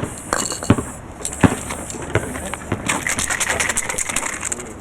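Aerosol spray paint can hissing in spurts, the longest near the end, with a few sharp knocks in between.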